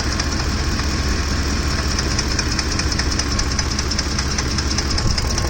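Ford F-150's 5.4-litre 3V Triton V8 running hot with a loud, fast, even ticking-knocking from the top of the engine. The owner suspects a timing-chain or camshaft problem on the left bank, a noise that comes only once the engine is hot.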